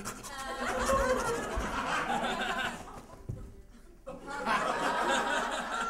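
Theatre audience laughing in two waves: a long burst in the first half, a lull, then a second wave near the end.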